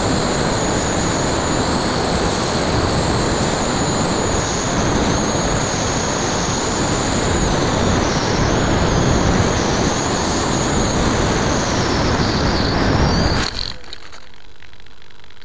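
Onboard sound of a Bixler 2 RC foam plane in flight: rushing wind over the camera, with the high whine of its brushless electric motor and 9x6 propeller wavering in pitch. Near the end it all cuts off suddenly as the plane comes down in tall grass, and only a faint hiss is left.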